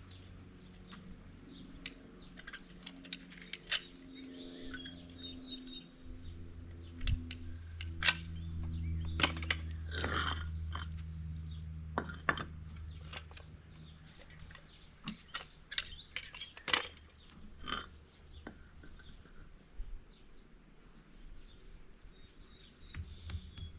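Travertine stone pieces being set back in place, with scattered sharp clinks and knocks of stone on stone. A low steady hum comes in about six seconds in and fades away around fourteen seconds.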